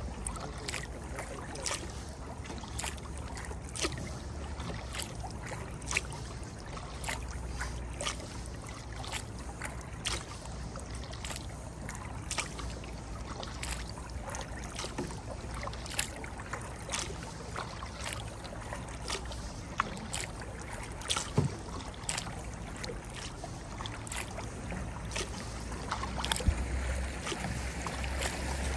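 Kayak paddling: the paddle blade strikes the water in regular strokes about once a second, over a steady low rumble.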